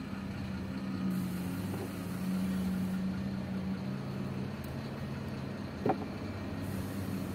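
An engine idling steadily with a low hum, and one brief sharp sound about six seconds in.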